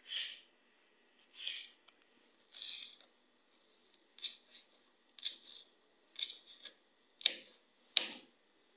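Kitchen knife cutting through green bell pepper on a plastic cutting board: a crisp cut about once a second, the last two, near the end, the loudest, as the blade strikes the board.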